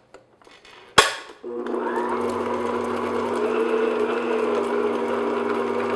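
Stand mixer with a paddle attachment beating butter and cream cheese: a sharp click about a second in, then the motor starts and runs with a steady hum.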